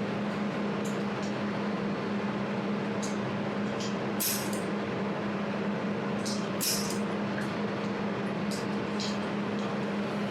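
Jewelry laser welding machine running with a steady cooling hum, while its laser fires irregular short pulses, each a sharp high-pitched snap.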